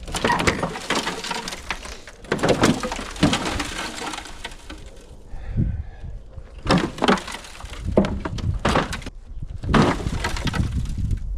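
Work on a Ford Excursion's body as it is cut and broken apart: five bursts of crackling, clattering noise, each a second or two long, with short pauses between.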